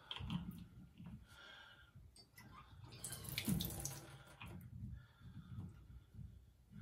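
Water running briefly from a Delta shower valve for about a second, starting about three seconds in, while the clear acrylic handle is worked by hand, with knocks and rubbing from the handle.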